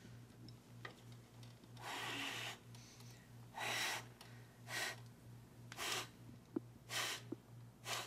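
An elderly man blowing out the candles on a birthday cake in about six breathy puffs, the first the longest and the rest shorter and coming faster. A low steady hum runs underneath.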